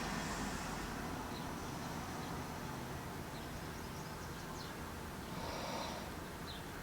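Faint outdoor background coming in through an open window: a steady low rumble with a few brief, high chirps from small birds scattered through it.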